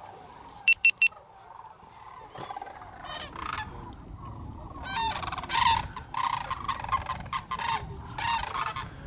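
A flock of sandhill cranes calling, many calls overlapping, sparse at first and growing louder and denser from about halfway. A little under a second in, three short high beeps come in quick succession and are the loudest sounds.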